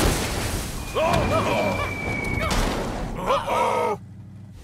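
Cartoon monster truck crash into dirt: a sudden heavy thud with a low rumble of earth and dust, with short groaning vocal sounds about a second in and again past three seconds, and a thin high tone held for about a second and a half. The rumble drops away sharply near the end.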